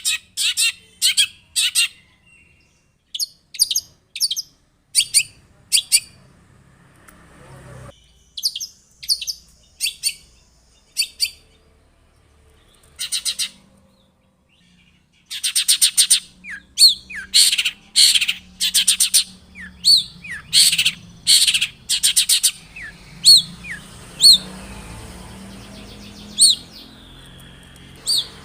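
Long-tailed shrike (cendet) singing: short, harsh, high-pitched notes in spaced groups, then after a short pause about halfway, a fast, dense run of notes.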